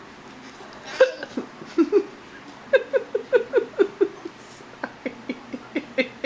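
A woman's hiccup, sharp and sudden, about a second in, then a quick run of short laughs, about five a second, and a few more spaced laughs near the end.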